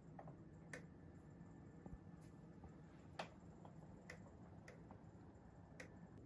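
Near silence: quiet room tone with a handful of faint, scattered clicks, the clearest about three seconds in.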